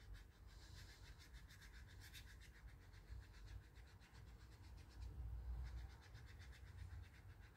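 Faint scratching of a paintbrush scrubbing watercolour paint: a fast, even run of light brush strokes, several to the second.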